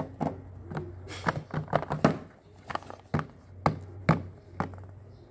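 Hands handling small objects: a dozen or so irregular sharp taps and clicks over a low steady hum.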